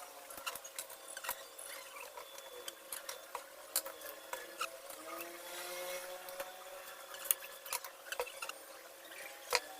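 Scattered light knocks and clicks of wooden workpieces and hand tools being handled, irregular and fairly quiet.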